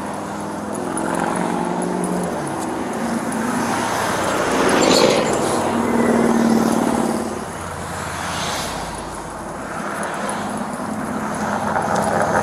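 Road traffic passing close by on a highway: cars and trucks driving past one after another, the engine and tyre noise swelling to its loudest about five to seven seconds in, easing off, then rising again near the end.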